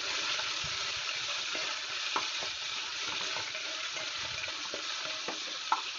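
Sliced onions and curry leaves sizzling in hot oil in a metal pot, stirred with a spatula that clicks and scrapes against the pot; a sharper tap near the end.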